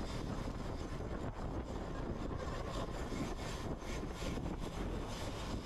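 Steady wind rush and road rumble on a GoPro action camera's microphone while riding a road bike at speed.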